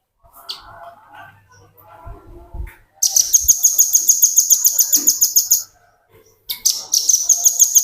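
Velvet-fronted nuthatch singing a fast, high, rattling trill of repeated notes, about ten a second. Two long trills: the first begins about three seconds in, a brief pause follows, and the second begins near the end. Faint chirps and a few soft thumps come before them.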